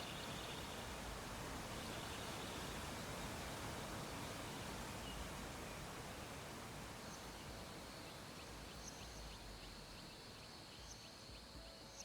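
Faint steady background hiss; about halfway in, a faint high-pitched steady tone comes in with faint ticks repeating at a regular pace.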